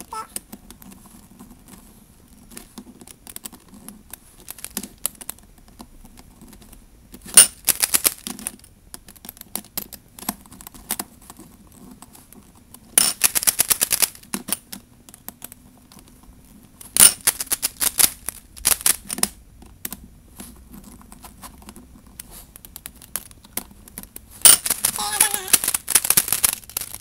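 A DIY Rubik's-type cube being turned in quick bursts, its plastic pieces clacking in rapid runs of clicks, four times, the last and longest near the end. The cube is being turned to test for looseness after its core screws were tightened.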